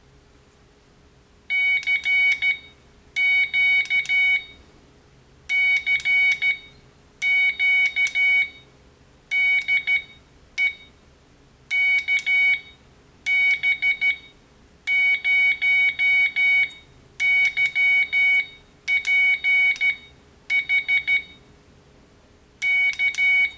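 Morse code sent on a homemade plastic-spoon paddle keyer: its ATtiny85 chip drives a piezo tweeter fitted with a plastic tube as a resonator, giving high-pitched dits and dahs in character groups with short pauses between them.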